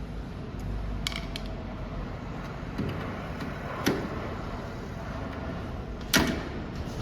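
A few sharp clicks and knocks from fitting the wire feeder's feed hose to a handheld laser welding machine, over a steady low rumble. The loudest knock comes about six seconds in.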